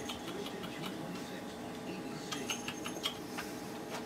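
Light scattered clicks and scuffling from Chihuahua puppies moving about and playing with toys.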